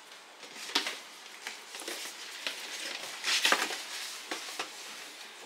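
Crinkling and rustling of plastic garment packaging as a boxed clothing set is handled, in irregular bursts, loudest about three and a half seconds in.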